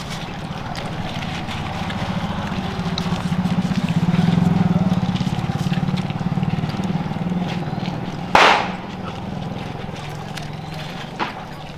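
A motor vehicle's engine, steadily pulsing, growing louder to about four seconds in and then fading, as of a vehicle passing by. A short burst of noise comes about eight seconds in.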